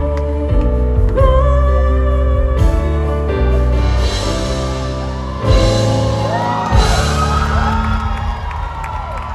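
A woman singing a ballad live over a band with sustained chords and a heavy bass.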